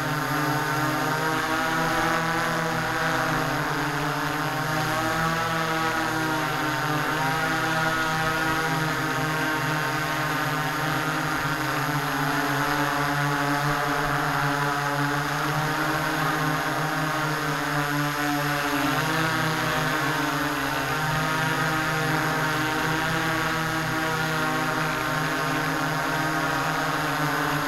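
Hexacopter's six electric motors and propellers humming steadily, heard up close from the aircraft itself. Many pitches drift up and down together as the motors keep changing speed.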